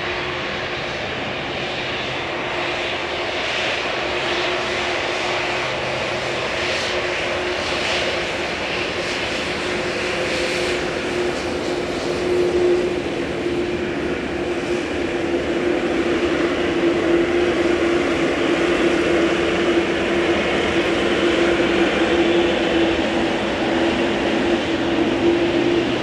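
Boeing 787-8 Dreamliner's GEnx-1B turbofan engines running at taxi idle: a steady jet rush with a constant low hum, getting a little louder in the second half as the aircraft rolls past close by.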